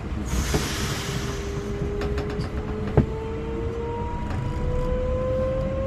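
Newag Impuls 2 electric multiple unit pulling away, heard from inside the car. A short burst of air hiss comes first, then the traction drive's whine rises slowly and steadily in pitch as the train accelerates, with a single sharp click about three seconds in.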